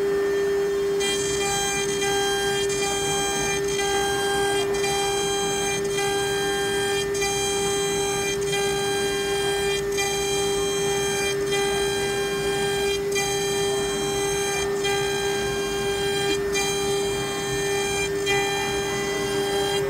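QUICK K6090T CNC router carving a wooden board with its 2.2 kW water-cooled spindle: a steady, loud spindle whine. From about a second in, higher whines join it, cutting out and restarting a little more often than once a second as the head works through the cut.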